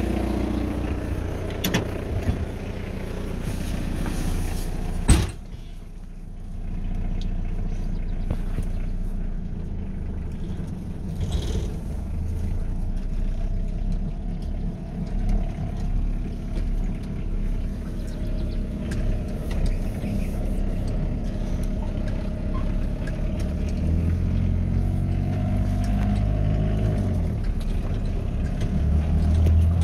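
The 2.2-litre Isuzu C223 four-cylinder diesel of a 1985 Chevy S10 pickup running, heard from outside the truck. About five seconds in a door slams once, and after that the engine is heard from inside the cab as the truck drives off and picks up speed.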